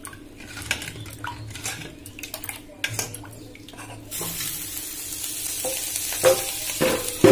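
A metal ladle clinks and scrapes in a steel bowl of rice-flour chitau pitha batter. About four seconds in, batter on a hot pan starts sizzling steadily, with a few more utensil clinks and a sharp knock at the end.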